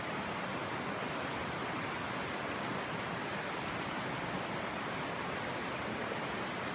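Steady rush of a mountain trout stream's rapids, an even unbroken hiss of moving water.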